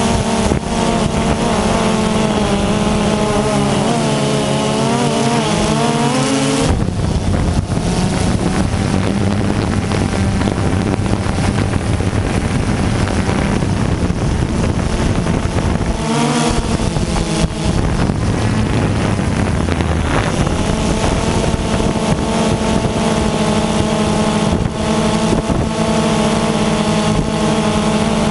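DJI Phantom 2 quadcopter's four electric motors and propellers buzzing loud and close, heard from the camera mounted on the drone. The pitch wavers and shifts as the motors change speed, turning rougher and noisier for a long stretch in the middle before settling back into a steady buzz.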